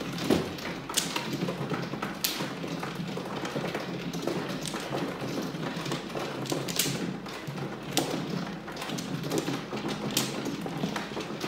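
Mahjong tiles clicking and knocking as a hand is picked up, turned face up and set down one after another on a felt table top: irregular sharp clacks, a few louder knocks among them.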